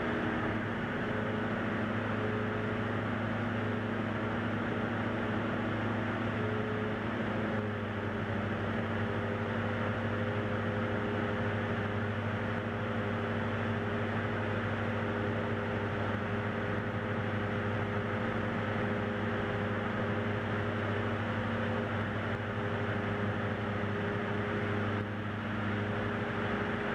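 Light single-engine aircraft's piston engine and propeller droning steadily in cruise, heard from inside the cockpit. The drone's tone shifts slightly about eight seconds in.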